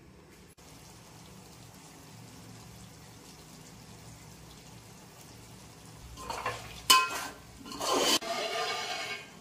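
Faint steady hum, then a few short swishing and scraping sounds with one sharp clink: a pot and its contents being handled during cooking.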